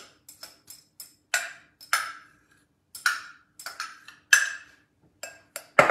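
Metal spoon knocking and scraping against a glass batter bowl while scooping out a chicken-broccoli filling: a quick, irregular run of clinks, each with a brief ring.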